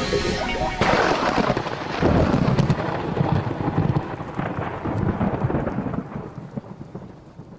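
Rain with rolling thunder rumbles. It takes over as the music stops just under a second in, then fades away toward the end.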